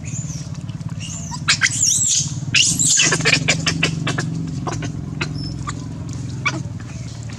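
Young long-tailed macaques squealing in short, high-pitched cries, several of them bunched together from about a second and a half to three and a half seconds in, with short smacking clicks from eating watermelon. A steady low hum lies underneath throughout.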